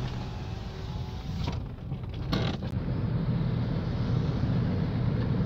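Car running on the road, heard from inside the cabin: a steady low rumble with a few creaks and clicks around two seconds in.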